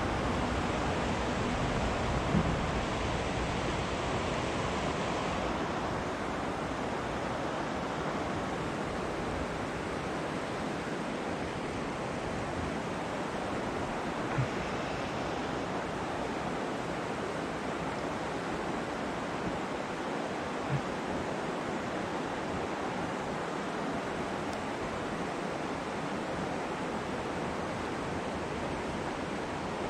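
Steady rush of a flowing trout stream, with three soft knocks along the way.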